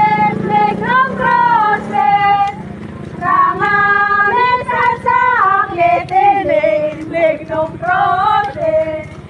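Female voices singing a slow melody with long held notes that slide between pitches. A low engine hum from a motorcycle runs beneath the singing and fades after about two seconds.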